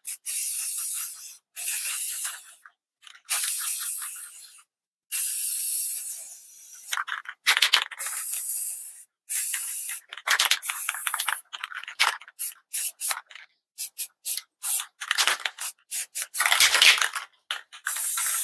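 Aerosol spray paint can spraying in a series of bursts, the first few a second or two long, then many quick short puffs, and two longer sprays near the end.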